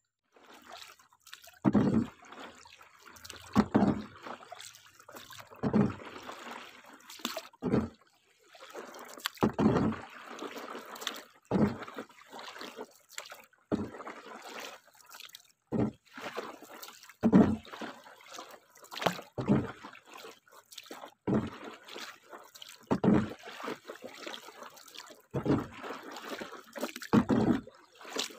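Wooden paddle dipping and pulling through river water from a small boat, a splashing stroke about every two seconds, with water trickling between strokes.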